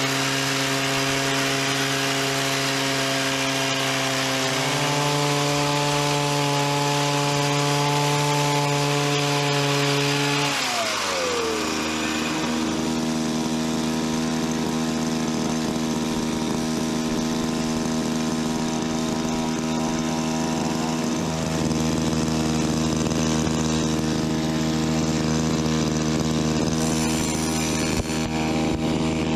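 Small two-stroke engine of a backpack-powered tea harvester running at high speed. Its pitch steps up a little about five seconds in, then around eleven seconds it slows down to a lower steady speed.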